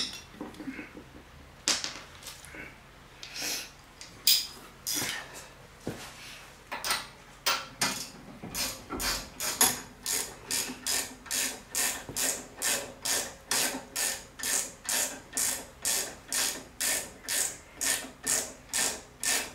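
Hand ratchet clicking as the shock absorber mounting bolts are snugged up. It goes in a few scattered strokes at first, then settles into a steady rhythm of about two to three clicks a second from about a third of the way in.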